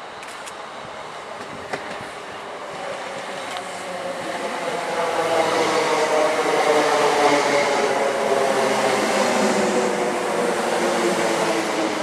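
Electric multiple-unit passenger train passing along the platform. It grows from a distant rush to a loud, steady rumble of wheels on rail, mixed with a hum of several tones, loudest from about halfway through.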